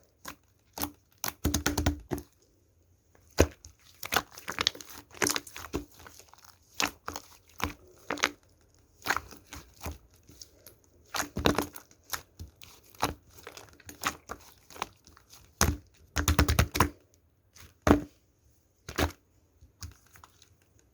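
Slime being squished and poked by hand, giving irregular sharp clicks, pops and crackles in short clusters.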